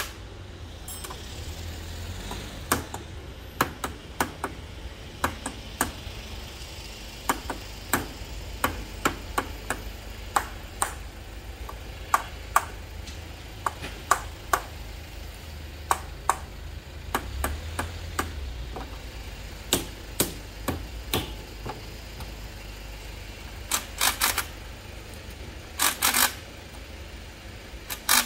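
Hand tools knocking and tapping on a Mitsubishi HF-SP502 servo motor under repair: sharp, irregular knocks, roughly one or two a second, with a couple of longer bursts near the end.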